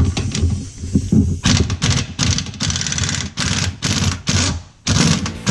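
Pneumatic impact wrench hammering in a run of short bursts, starting about a second and a half in, as it loosens the nut on the band clamp of a truck's air brake chamber.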